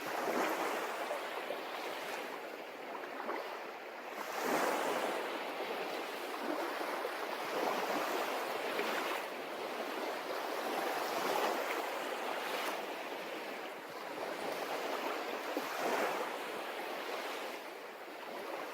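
Small waves washing in and out, swelling every two to three seconds.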